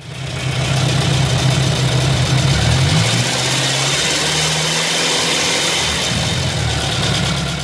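Ariel Square Four four-cylinder motorcycle engine idling steadily with its valve gear uncovered, the exposed rockers and springs adding mechanical clatter; the engine note dips slightly about three seconds in.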